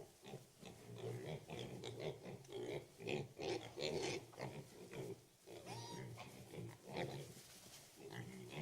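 Several pigs in a shed grunting and squealing, a continuous run of short, overlapping calls.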